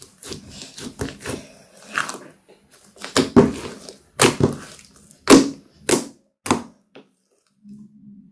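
Thick slime being kneaded and squeezed by hand, giving an irregular run of wet squishes and sharp clicking pops, falling quiet about two seconds before the end.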